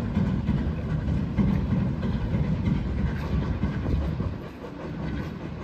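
Two steam locomotives working a freight train away, with the rumble and rattle of the wagons rolling over the rails; the sound drops away about four seconds in as the train moves off.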